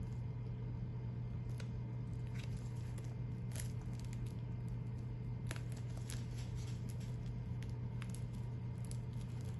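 Gloved fingers pressing and rubbing stencil transfer paper down onto a sneaker's leather toe box: faint scattered crinkles and small taps over a steady low hum.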